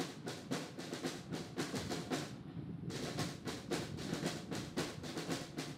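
Military band playing a march, led by snare drums beating evenly at about four or five strokes a second; the drum strokes pause briefly about two and a half seconds in.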